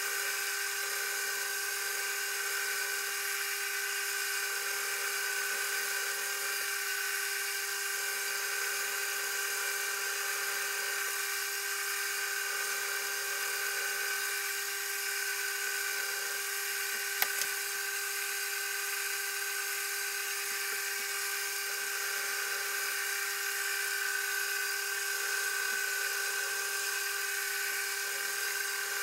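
Mini mill's spindle motor running with a steady whine while a small drill is fed into a cast iron cylinder, with one sharp click a little past halfway.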